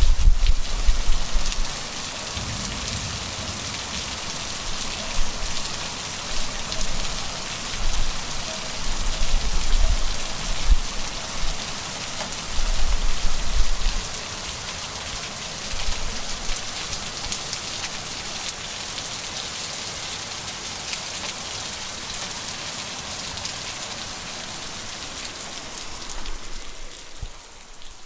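Heavy rain falling in a dense, steady hiss, with a few short low rumbles in the first half. The rain sound turns quieter and duller near the end.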